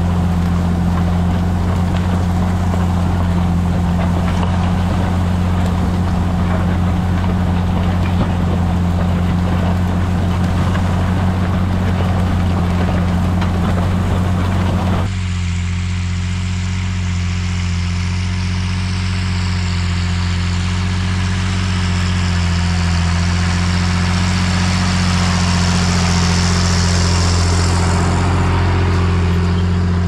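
Tractor engine running steadily while ploughing, a low even drone. About halfway through, the higher hiss above it drops away suddenly while the engine drone carries on.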